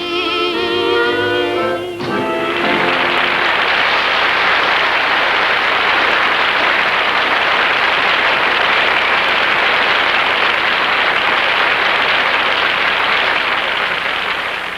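A country song ends on a held sung note over the band, then an audience applauds steadily, tapering off near the end.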